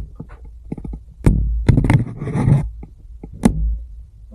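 Scraping and sharp clicks of someone moving over rock and loose earth, with low rumbling handling noise on the camera microphone, in uneven spells.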